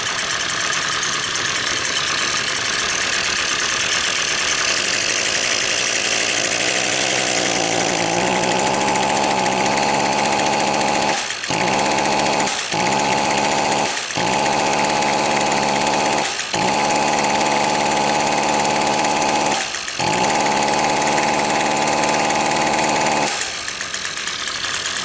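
Small two-stroke engine idling, then held at throttle: it climbs only a little and holds a low, steady speed, stumbling briefly about five times, then drops back to idle near the end. It runs quiet and will not rev up, which the mechanic is 99% sure is a plugged exhaust or spark arrestor screen, with a faulty ignition coil stuck in retard as the other possibility.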